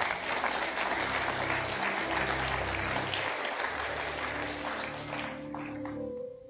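Congregation applauding: a dense wash of clapping that begins suddenly and fades out about six seconds in. Soft background music with sustained low notes plays underneath.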